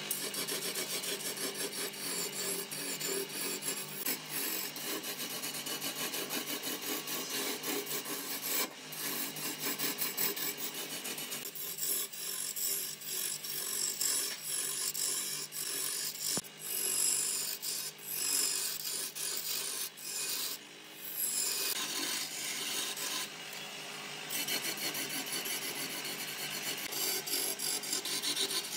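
Lathe turning tool cutting a spinning block of wood: a steady scraping hiss of shavings peeling off, dropping away briefly a few times in the second half as the cut eases, with a steady low hum underneath.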